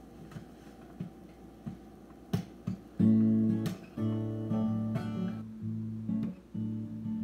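Cutaway acoustic guitar: a few faint knocks, then, about three seconds in, strummed chords start the song's intro. The chords ring and change roughly every second.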